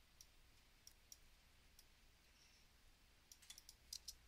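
Faint clicks of a computer mouse over near-silent room tone: a few scattered clicks, then a quick cluster near the end.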